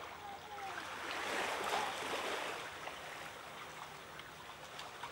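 Shallow water washing and lapping over a concrete and gravel ledge, swelling about a second in and then easing off.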